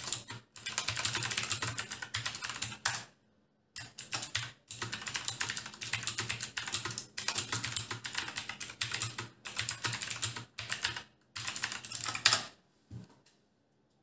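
Fast two-handed typing on a Cosmic Byte CB-GK-14 Sirius mechanical keyboard with clicky Otemu Blue switches: dense runs of loud key clicks, broken by a few short pauses. One sharper keystroke near the end, then a last single click.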